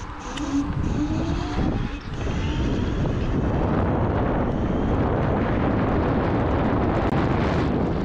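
Wind rushing over the camera microphone as an electric scooter rides along, building in the first two seconds and then holding steady. A faint rising whine runs through the first two seconds.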